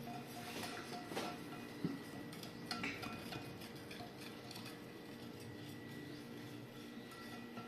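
A spoon stirring thick brownie batter in a bowl, with scattered light clinks and scrapes against the bowl.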